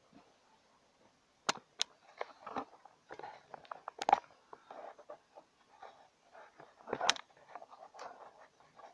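Steel tool-chest drawer being handled and opened on its ball-bearing slides: a few sharp metallic clicks and knocks amid light rattling and scraping.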